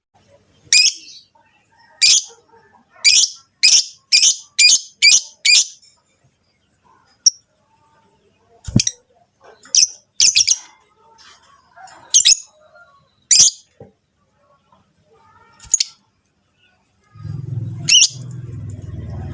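Lovebirds giving short, shrill chirping calls, which the uploader presents as rosy-faced and Fischer's lovebird mating calls. About eight calls come in a quick run, then they come at wider intervals. A low steady hum comes in near the end.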